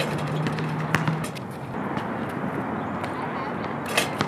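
A basketball striking an outdoor hoop twice, about one second in and again about four seconds in, each a single sharp knock, the second with a brief metallic ring, over steady outdoor background noise.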